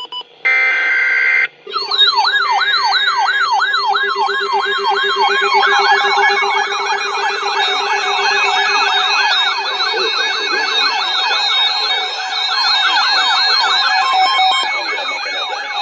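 Siren-like electronic alert attention tone of an emergency alert broadcast: a brief burst of noise, then a siren-like tone sweeping down in pitch over and over, several times a second. From about five seconds in a second, faster sweep joins it, and stepped tones follow near the end.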